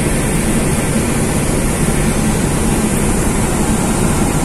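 Steady low drone of the KMP Trimas Kanaya ferry's engines, with an even rushing noise over it.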